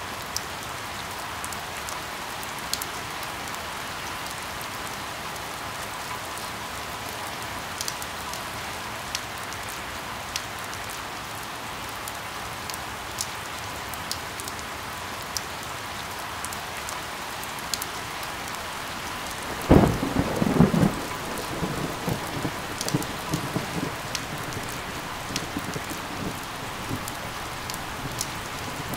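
Steady rain with scattered sharp drip ticks. About two-thirds of the way through, a loud thunderclap breaks in suddenly and goes on as an uneven rolling rumble under the rain.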